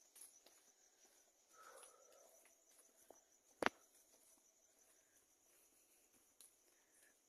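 Crickets chirping faintly in a steady, fast high-pitched trill, with one sharp click a little past halfway.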